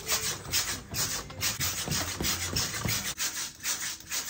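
Mini trampoline's springs and mat scraping and creaking in a quick rhythm, about four scratchy strokes a second, as someone bounces on it.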